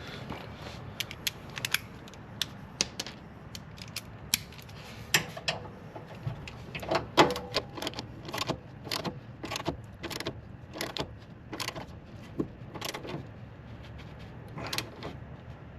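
Metal hand tools clicking and clinking against steel as the Camaro ZL1's sway bar mounting bolts are tightened: a string of irregular sharp clicks, a few ringing briefly.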